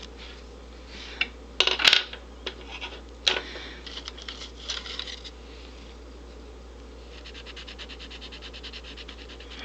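A few sharp clicks and knocks as art supplies are handled in a cardboard box, then, from about seven seconds in, a Creative Color artist lead in a lead holder scratched rapidly back and forth on sketchbook paper, shading a swatch in fast, even strokes.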